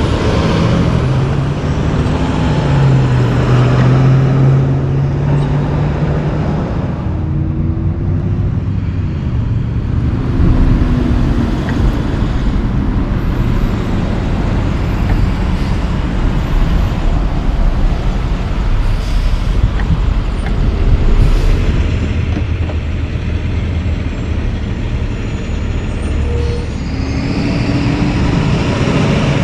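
Loaded logging trucks passing one after another, their diesel engines pulling with a heavy low rumble and tyre noise. In the first few seconds one truck's engine note climbs as it pulls through an intersection, then drops at a gear change.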